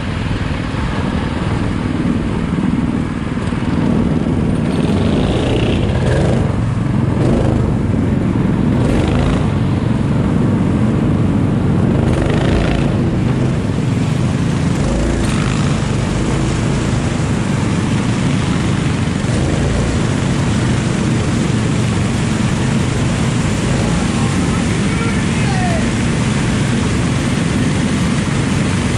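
Go-kart engine running steadily, heard from on board the kart.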